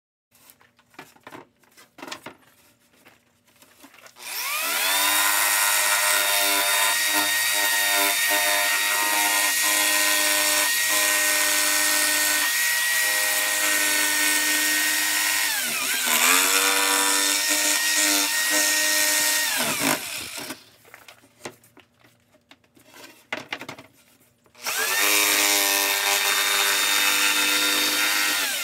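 Electric power tool motor spinning up and running steadily for about fifteen seconds, its pitch dipping briefly and recovering partway through, then winding down. After a few clicks of handling it spins up again for a shorter run of about four seconds near the end.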